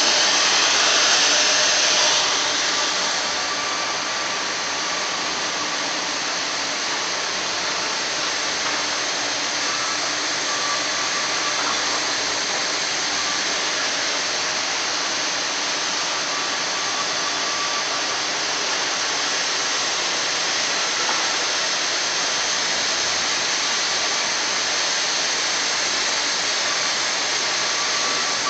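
Sawmill bandsaw and mill machinery running with a steady rushing noise, louder and hissier for the first two seconds or so.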